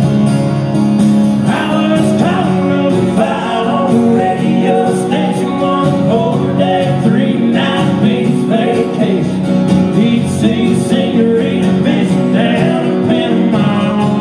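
Live acoustic country song: several acoustic guitars strumming a steady rhythm, with a man singing over them.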